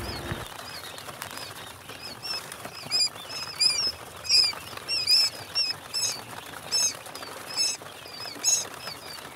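Quail chicks peeping: short, high chirps repeating about once or twice a second, starting about two seconds in over a faint hiss.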